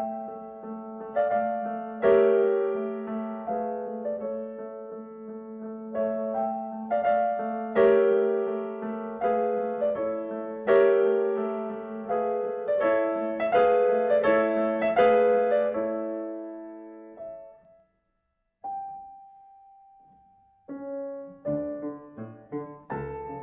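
Background solo piano music that dies away about 17 seconds in. A single steady tone follows for about two seconds, then piano playing starts again near the end.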